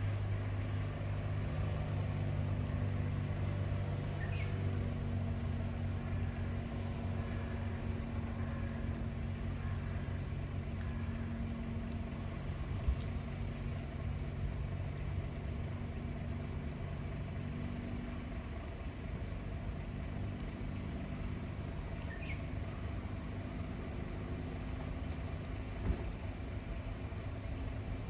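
A vehicle engine idling, a steady low hum, with a sharp click twice.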